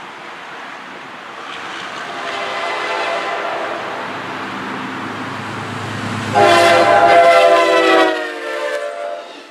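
Amtrak GE B32-8WH locomotive's Nathan K5L five-chime air horn blowing a chord as the train approaches. It gets much louder a little past six seconds in as the locomotive comes close, and drops slightly in pitch as it passes, over the low rumble of the diesel engine.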